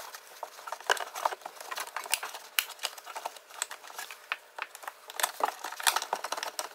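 Irregular light clicks and rustles of a plastic wiring-harness connector and its rubber grommet being handled and fed down into a truck door.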